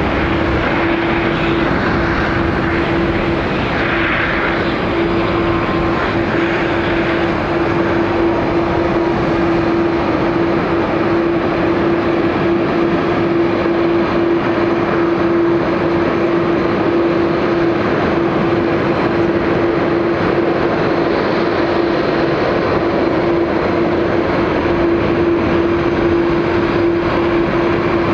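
Air Canada Boeing 787-9's GEnx jet engines running as the airliner rolls out along the runway after touchdown: a loud, steady roar with a constant hum underneath.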